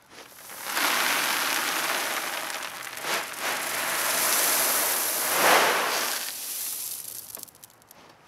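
Pea gravel pouring out of a tipped plastic wheelbarrow into a dirt hole: a continuous rush of small stones that starts about a second in, swells to its loudest after about five seconds and trails off near the end.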